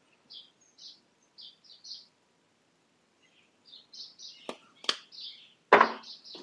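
A spice jar of dried grilling herbs shaken over a bowl in short, soft bursts of rattling, followed about four and a half seconds in by a few sharp knocks and clinks as the jar goes back among other jars on a shelf, the loudest near the end.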